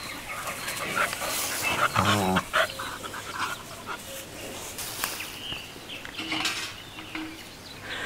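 Dogs panting and scuffling through grass as they play-wrestle, with a brief pitched vocal sound about two seconds in.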